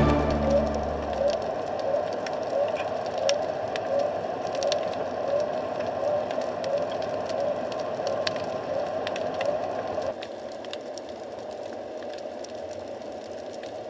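Underwater sound picked up by a submerged camera: scattered sharp clicks and crackle over a steady hiss, with a short rising chirp repeating a little under twice a second. The chirping stops about ten seconds in and the sound drops quieter.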